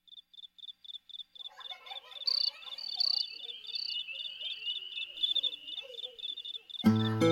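A cricket chirping in an even rhythm, about four to five short high chirps a second, with a busier layer of other calls joining about a second and a half in. Acoustic guitar music starts just before the end.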